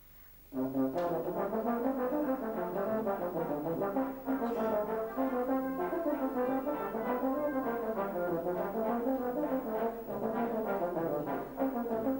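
Euphonium solo with brass band accompaniment. After a brief pause the music comes back in about half a second in, with a fast, winding run of notes over the band.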